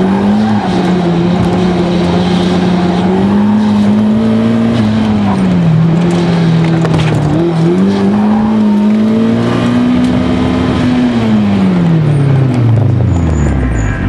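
In-car sound of a 2004 Mazdaspeed Miata's turbocharged four-cylinder engine driven hard through an autocross course, the revs rising and falling between corners. Near the end the revs fall steadily.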